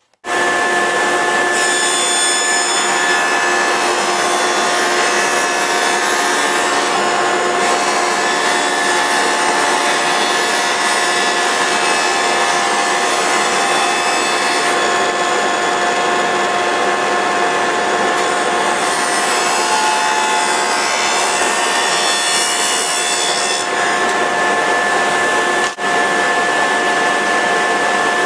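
An electric power tool running steadily while it works wood, a constant motor whine under a rough cutting noise. It starts abruptly at the outset and drops out for a moment a couple of seconds before the end.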